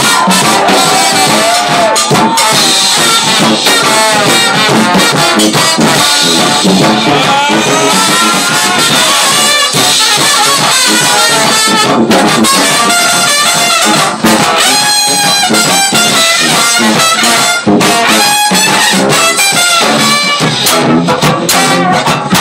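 Live band playing an instrumental break of a blues number, with trumpet and trombone leading over banjo and drums.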